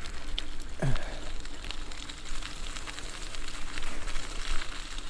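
E-bike rolling along a cleared street: a steady crackle and many small ticks from the tyres on the road surface, over a faint steady hum, with a brief falling squeak about a second in.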